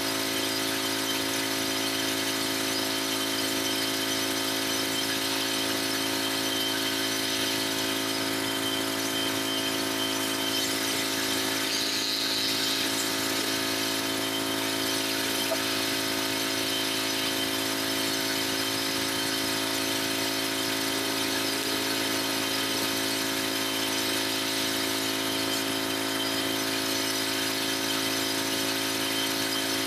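Pressure washer running steadily at an even pitch: the motor's drone with a hiss over it, the sound of the pump working as water sprays on the driveway.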